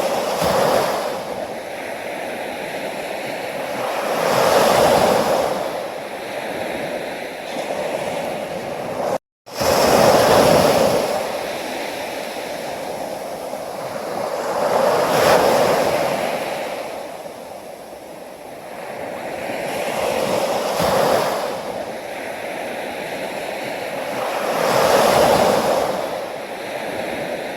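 Sea waves breaking and washing onto a shore, a steady hiss that swells and ebbs about every five seconds. The sound cuts out completely for a split second about nine seconds in.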